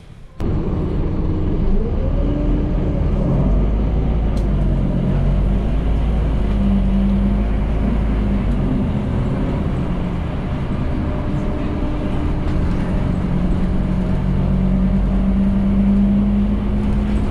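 City bus engine and road rumble heard from inside the bus as it drives, the engine note rising and falling with speed. It cuts in suddenly about half a second in.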